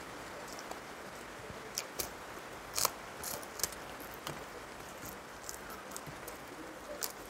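Eating by hand from a steel plate: scattered small, sharp clicks and crackles as fingers work food on the plate, over a steady hiss.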